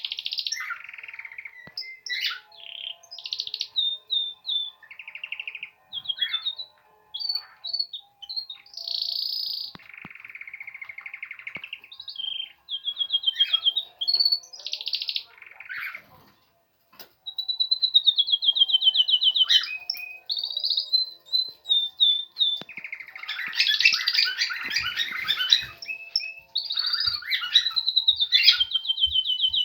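Domestic canary singing its first song of spring: a long, varied run of chirps, whistled notes and fast trills, with a loud, dense rolling passage a little past two-thirds of the way through.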